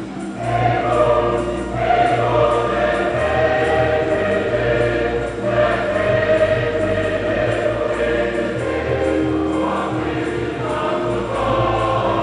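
Church choir singing a hymn in parts, with instrumental accompaniment and a steady bass line.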